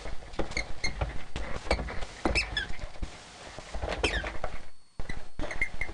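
A border collie rummaging in a Christmas stocking of toys: rustling and clicking with several short high squeaks, some falling in pitch. The sound cuts out briefly about five seconds in.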